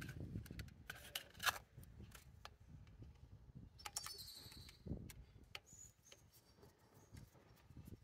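Faint scattered clicks and handling noise as the cover is fitted back onto a differential pressure switch and its front screw is driven in with a screwdriver.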